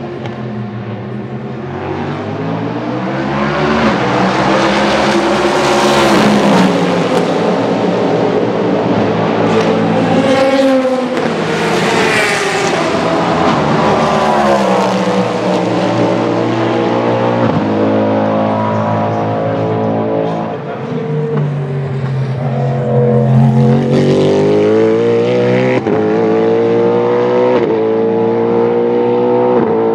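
Cadillac V-Series.R prototype racer's naturally aspirated V8 at racing speed on the track, the engine note climbing and dropping through gear changes as the car goes by. The loudest pass comes about twelve seconds in, and from about two-thirds of the way through the engine climbs in pitch and holds high through upshifts.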